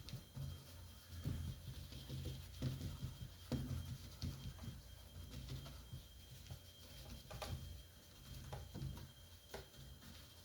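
Paintbrush working acrylic paint on a stretched canvas: faint, irregular dabs and scrubbing strokes over a steady low hum.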